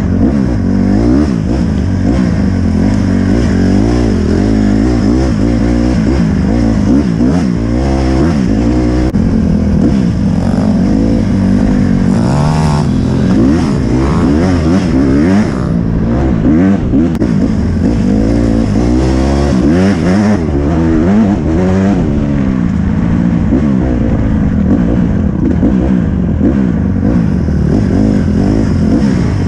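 Honda CRF150 dirt bike's single-cylinder four-stroke engine being ridden hard, its pitch rising and falling again and again with throttle and gear changes. Heard close up from on the bike.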